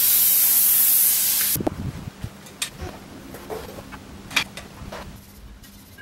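Air rushing out of a mountain-bike tyre as its bead is pushed off the tubeless rim: a loud hiss lasting about a second and a half that stops abruptly. Scattered knocks and scrapes of the tyre and rim being handled follow.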